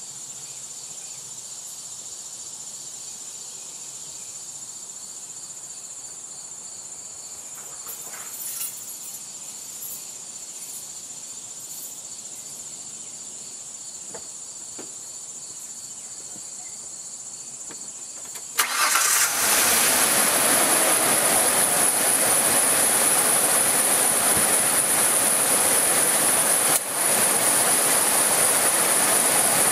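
Insects trill steadily at first; about two-thirds of the way through, the Ford Ranger's 3.0 L V6 starts with a sudden jump in level and keeps running loudly in a cold start.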